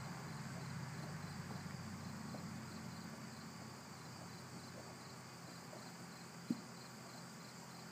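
Faint, steady chirring of insects, with a low hum underneath and a single short knock about six and a half seconds in.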